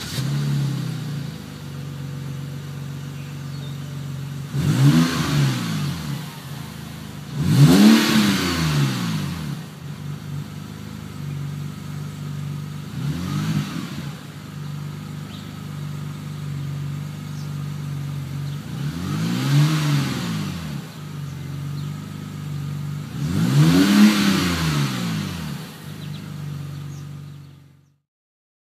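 2007 BMW 328xi's 3.0-litre inline-six idling through a Magnaflow 14815 aftermarket muffler, blipped five times with the revs climbing and dropping back to idle each time. The engine cuts off near the end.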